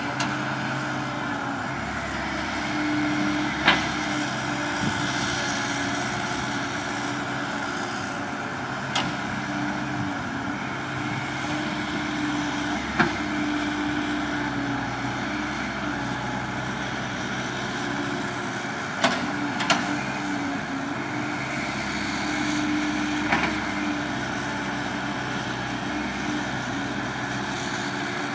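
Cat 312C L hydraulic excavator digging: its diesel engine runs steadily under load, with a hydraulic tone that rises and falls as the boom and bucket work. About six sharp metal clanks punctuate it.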